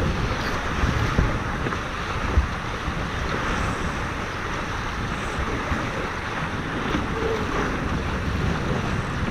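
Wind buffeting the onboard microphone over water rushing along the hulls of a Tornado racing catamaran under sail, with one brief thump about two and a half seconds in.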